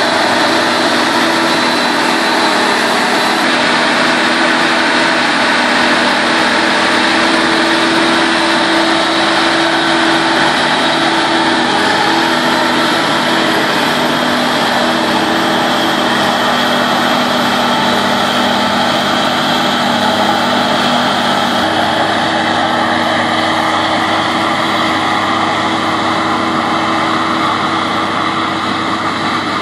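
Claas Jaguar 850 forage harvester running steadily while chopping maize and blowing it into a trailer, a loud, even drone with a held hum.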